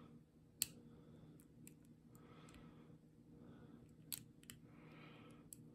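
A pick and tension wrench working the pins inside a brass pin-tumbler lock cylinder: a few faint, sharp metallic clicks, the loudest about half a second in and two more around four seconds in, with soft rubbing between.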